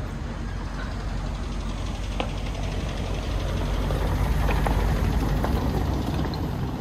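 A motor vehicle's engine running close by with a low rumble, swelling to its loudest about two-thirds of the way through and then easing off, as a vehicle passing in the street does.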